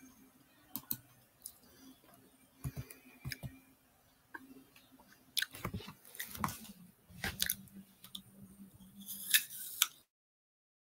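Irregular sharp clicks and short crackly, crunchy noises close to the microphone, growing busier in the second half, then the sound cuts off completely about ten seconds in.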